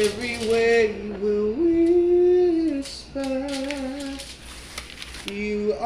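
Singing from a song: a voice carries a melody in long held notes, in several phrases with short breaks between them.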